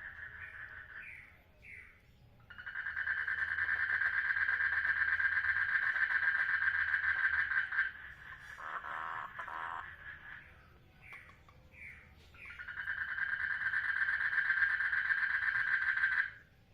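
Frogs calling at a breeding pond: a long, fast pulsing trill held for about five seconds, and another for about four seconds near the end, with short chirps in between. These are the mating calls of breeding males.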